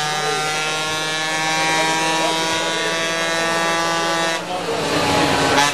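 Motorcycle engine running hard at steady revs on a dyno, a steady multi-toned whine. About four seconds in, the note breaks off and turns rough and noisy, with a sharp burst near the end.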